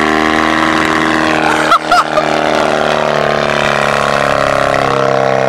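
Mazda RX-8's two-rotor rotary engine idling steadily through an exhaust with the catalytic converters cut out from the header back. A brief knock just under two seconds in.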